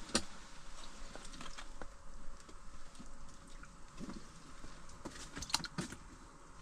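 Scattered small clicks and taps, bunched more thickly near the middle and toward the end, over a faint steady hum.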